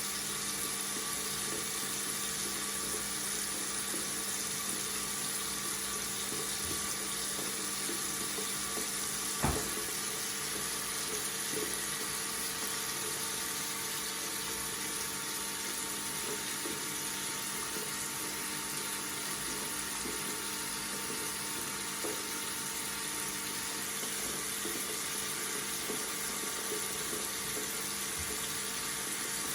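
Water tap running steadily into a sink, an even rushing flow with a faint steady hum under it. One brief knock about ten seconds in.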